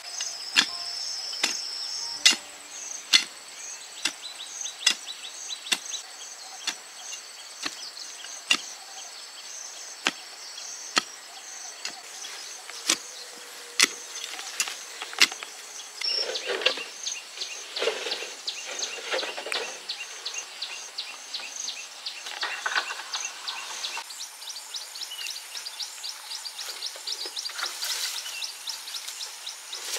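Sharp tool strikes on bamboo, a little more than one a second, through the first half, followed by rustling and scraping after the middle. A steady high insect trill sounds underneath.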